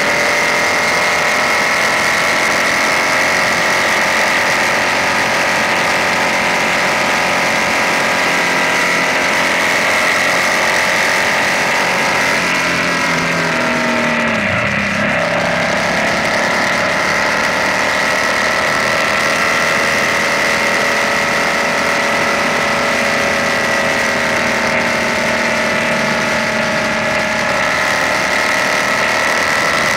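BMW R nineT's air/oil-cooled boxer twin running steadily at highway cruising speed, heard from an on-bike camera along with wind and road noise. About halfway through the engine note dips briefly, then climbs back up as the throttle comes on again.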